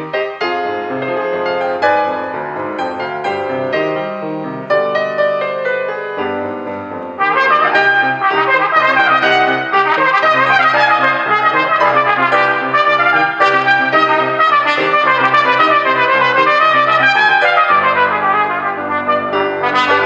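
Piano playing alone for about the first seven seconds, then a cornet comes in loudly over it with a moving melodic solo line, the piano still accompanying.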